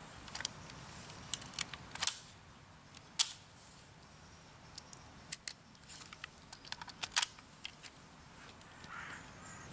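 Sharp mechanical clicks from a Ruger 10/22 semi-automatic rifle being handled, a handful of separate clicks with the loudest about three seconds in, followed by a run of lighter clicks and rattles.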